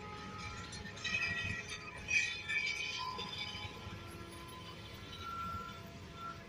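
Covered goods wagons of a freight train rolling past, their steel wheels on the rails giving high metallic squeals and ringing tones over a faint low rumble. The squealing is loudest between about one and three seconds in.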